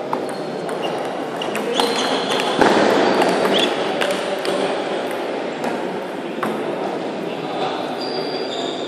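Table tennis ball clicking off bats and table during a rally, at an uneven rhythm, over a steady background murmur of the hall.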